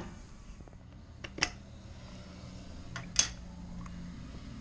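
Light handling clicks from the removed 120-volt two-position valve actuator: two sharp clicks about two seconds apart and a few fainter ones, over a low steady hum.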